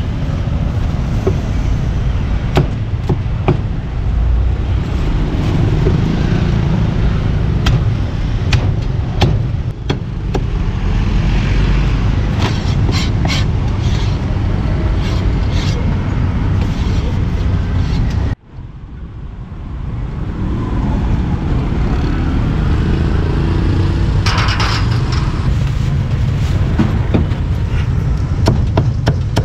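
Meat cleaver chopping roast pork and roast duck on a wooden chopping block: sharp knocks at irregular intervals over steady road-traffic rumble. The sound cuts out briefly just past halfway.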